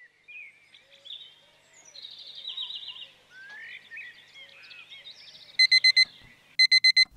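Faint birds chirping and trilling, then an electronic alarm clock beeping, loud, in two quick sets of four beeps near the end.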